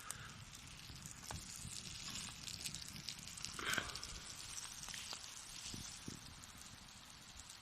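Wood campfire crackling with scattered sharp pops over a steady hiss, with a brief louder rustle a little before four seconds in.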